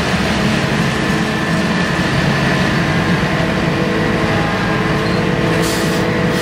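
Farm tractor's diesel engine running hard under load as it pulls a loaded trailer, a steady drone with black smoke showing the strain.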